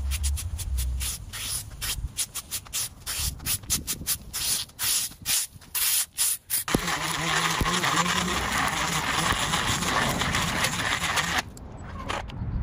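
A rake scraping and dragging grass clippings across the road edge in quick, irregular strokes. About two-thirds of the way in, the strokes give way to a steady rushing noise lasting about five seconds, which cuts off suddenly.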